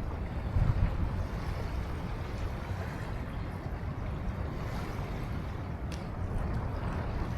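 Riverside ambience: steady wind and water with a low rumble underneath, and a small click about six seconds in.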